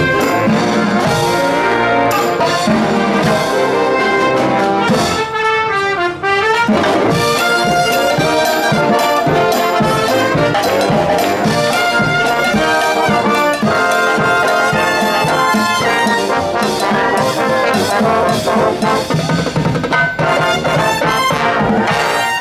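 Brass-band music with trumpets and trombones playing a lively tune, with a swoop down and back up in pitch about six seconds in.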